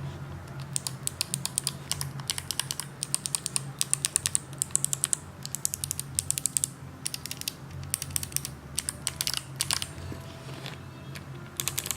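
Clicky mechanical keyboard switches being typed on in quick bursts of sharp clicks. There is a pause of a couple of seconds near the end before another burst.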